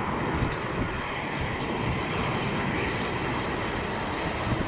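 Boeing 737-800's CFM56 turbofan engines at approach power as the airliner passes low just before touchdown: a steady, even jet noise with no change in pitch.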